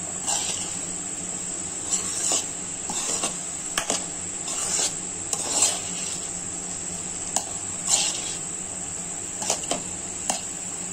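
Spatula stirring and scraping a thick broad bean masala around a non-stick kadai, in irregular strokes, with a steady high whine behind.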